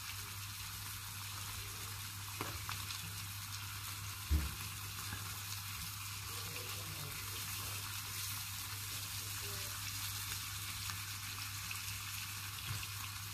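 Steaks frying in garlic butter in a pan, a steady sizzle throughout, with a single short knock about four seconds in.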